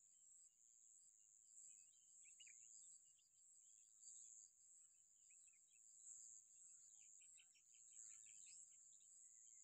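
Faint outdoor ambience: a steady high insect drone with scattered faint bird chirps, including a quick run of chirps near the end.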